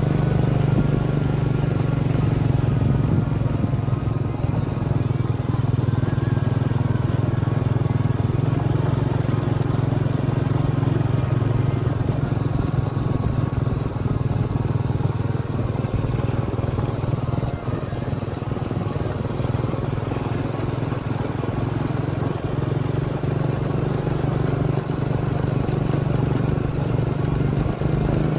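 Motorcycle engine running at a steady cruise as it is ridden along a road, an even hum that barely changes in pitch, with a slight dip in the middle.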